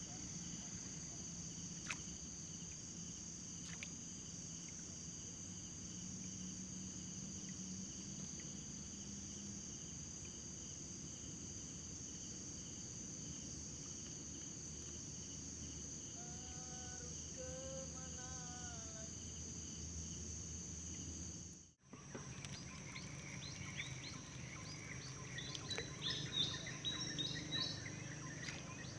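Steady high chirring of crickets and other night insects, with a few short calls near the middle. About two-thirds of the way through the sound cuts abruptly to birds chirping in a busy chorus.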